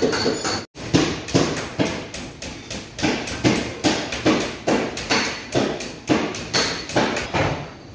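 Hammer tapping metal in a steady rhythm, about two and a half blows a second: paintless dent repair work on a car body panel.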